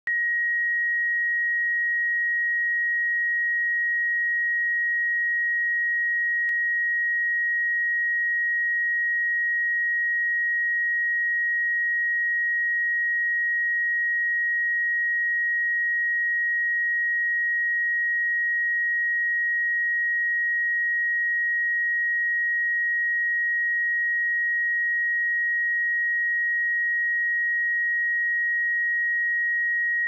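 Pure 1891 Hz sine-wave test tone, held steady at one pitch and level throughout.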